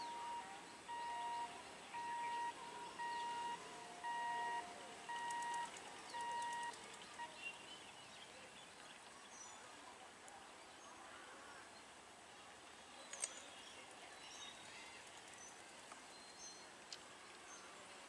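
A distant horn sounding short repeated toots on two alternating pitches, about one a second, for the first seven seconds. Then faint outdoor ambience with scattered bird chirps.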